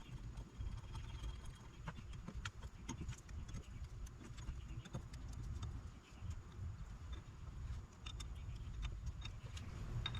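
Light metallic clicks and small rattles of steering-wheel hardware and tools being handled during fitting to the hub, scattered irregularly over a low handling rumble.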